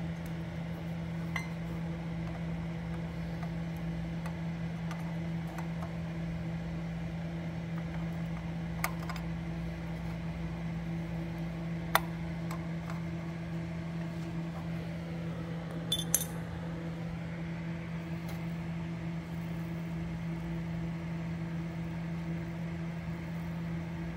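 A few light, sharp metallic clicks and clinks as a spoked dirt bike wheel is turned and checked for true against a wire pointer, over a steady low hum. The loudest clink, a short double ring, comes about two-thirds of the way through.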